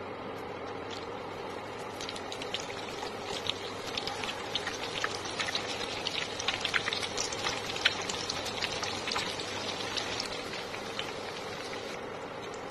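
Chicken egg rolls deep-frying in very hot oil, the oil sizzling with a dense crackle that builds over the first few seconds, is busiest in the middle and thins out near the end.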